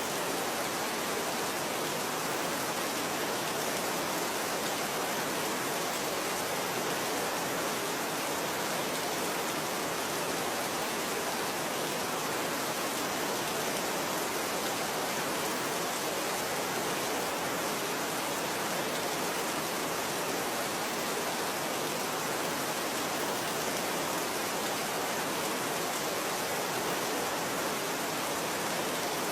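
Steady rain falling, an even, unbroken hiss with no single drops or other sounds standing out.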